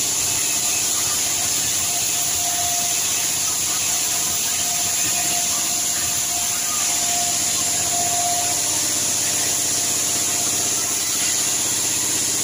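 Sawmill saw running steadily while a red sengon log is fed through it and sawn lengthwise, with a faint wavering whine over the even machine noise.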